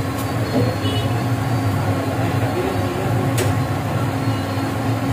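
Steady low mechanical hum, with a couple of faint sharp clicks.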